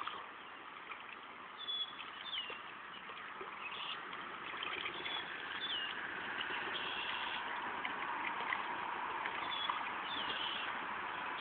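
Steady rush of moving river water, with a bird giving short, high, gliding calls every second or two, often in pairs.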